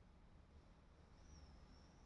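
Near silence: room tone with a low hum, and a faint, thin high tone that comes in just after a second.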